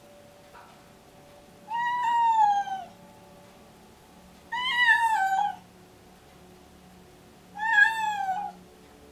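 A deaf, pregnant white cat meowing three times, each a drawn-out meow of about a second that drops in pitch at the end. She is in pre-labor, and this frequent meowing is one of its signs.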